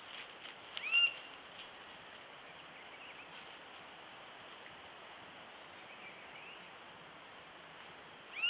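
A bird gives short calls that rise and fall in pitch, plainest about a second in and again at the very end, with fainter calls between. Under them runs the steady hiss of a trail camera's microphone.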